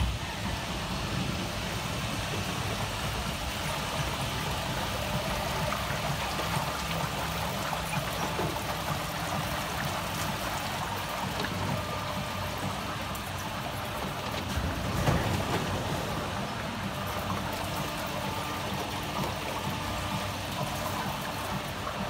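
Water flowing steadily through the channel of a river-rafting amusement ride, with a low steady hum underneath.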